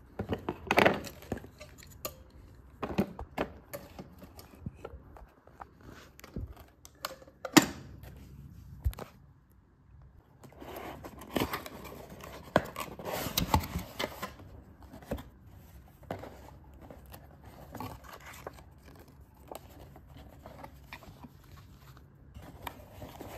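Unboxing and handling noises: scattered sharp clicks and knocks as small plastic and metal parts are handled, and a stretch of cardboard scraping and rustling about halfway through as a cardboard box is opened.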